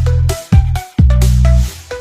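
Loud electronic DJ music played through a large sound-horeg rig: heavy booming bass with kicks that drop in pitch, under a melody of short plucked notes. The bass drops out near the end.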